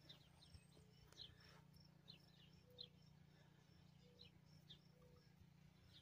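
Near silence: faint outdoor ambience with distant birds chirping now and then and a faint high chirp repeating a few times a second.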